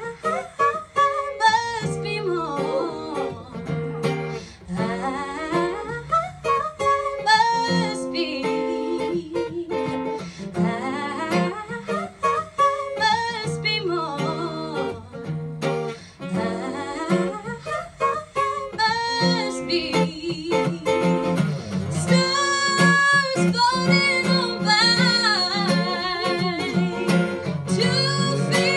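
A live song: a woman singing into a microphone, accompanied by an acoustic guitar.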